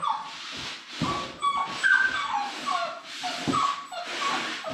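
Seven-week-old Labrador retriever puppies whining and yipping: a string of short, high cries, each falling in pitch, a few every second.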